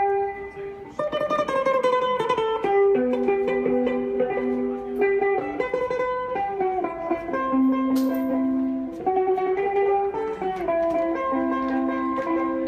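Amplified mandolin played by a street musician: a single-note melody of held notes, some sustained by rapid repeated picking.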